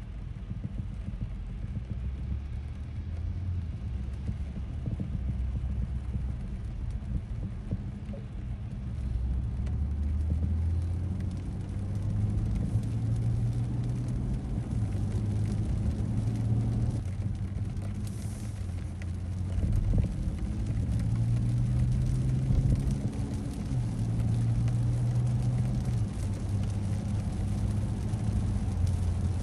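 Car driving on a wet road, heard from inside the cabin: a steady low rumble of road and tyre noise, with a low drone that steps up and down in pitch every couple of seconds.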